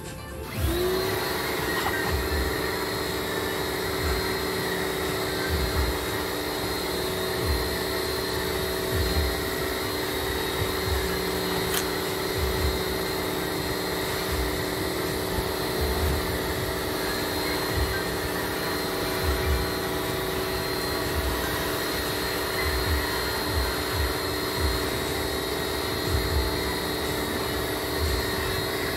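An electric pump motor starts about half a second in, winds up with a short rising whine, then runs steadily, with occasional low thumps.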